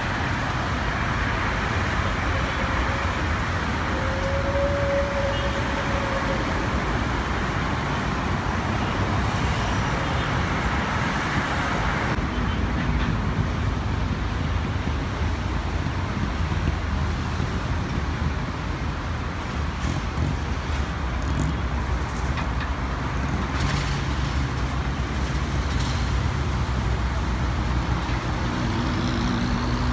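Steady road-traffic noise with a low rumble. The noise changes character about twelve seconds in, and a brief tone sounds around four seconds in.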